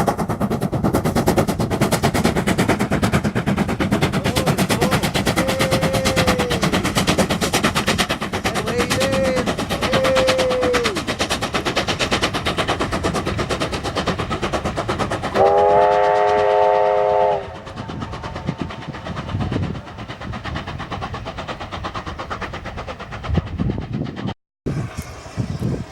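American 2-8-0 steam locomotive working past, its exhaust beats coming fast and loud, with a few short squealing tones rising and falling. About two-thirds of the way in it gives one loud chime whistle blast of about two seconds, after which the sound drops away.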